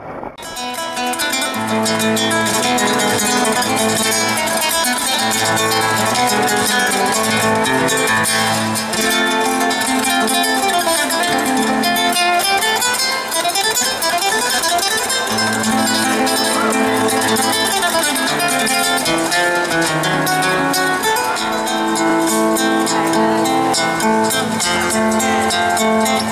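Instrumental music led by a plucked guitar, without vocals, coming up in the first second and then playing at a steady level.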